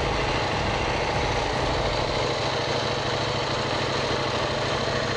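KTM 790 Duke's parallel-twin engine running steadily at low revs.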